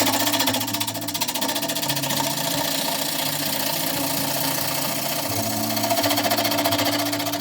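Wood lathe spinning an oak bowl blank while a turning tool cuts it, giving a continuous rapid, even ticking.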